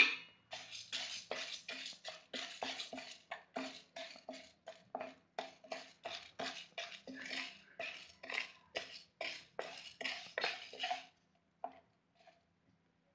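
Wooden spatula stirring chana dal dry-roasting without oil in a nonstick kadai: a sharp knock at the start, then a steady rhythm of scraping, rattling strokes, about two or three a second, that stops about two seconds before the end.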